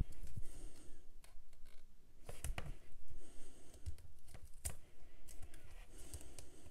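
Irregular light clicks, taps and rustling of paper and tape as hands press strips of double-sided tape onto die-cut paper pieces, with a few sharper clicks about two and a half and four and a half seconds in.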